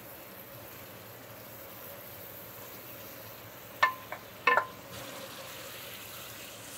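Chicken and curry sizzling in a thick-walled pot as a wooden spoon stirs it. About four seconds in, the spoon knocks against the pot three times in quick succession, each knock ringing briefly.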